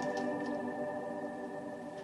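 Ambient background music: sustained, held synthesizer-like chords fading out slowly.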